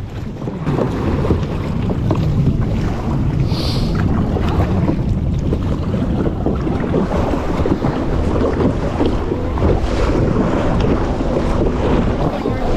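Steady wind buffeting the microphone over ocean water sloshing and splashing against a plastic sit-on-top kayak and its paddle.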